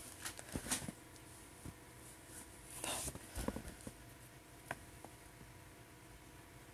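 Faint handling sounds over quiet room tone: a few soft taps and brief rustles, the clearest about three seconds in and a single small click near the middle, then only room tone.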